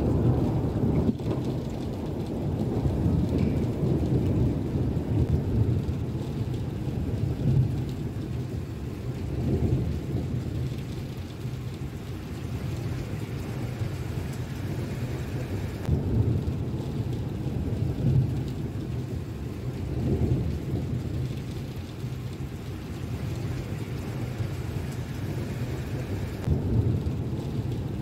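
Steady heavy rain with low rolling thunder that swells up several times.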